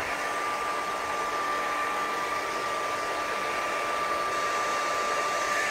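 Hand-held hair dryer with a diffuser attachment running steadily: a constant rush of air with a thin, steady whine from its motor.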